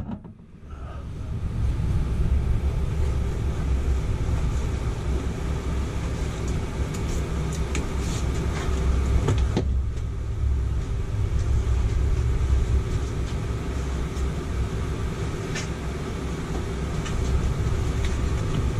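Rooftop RV air conditioner (Coleman Mach) running: a steady low hum and rush of air through the open ceiling supply, with a few light clicks of handling.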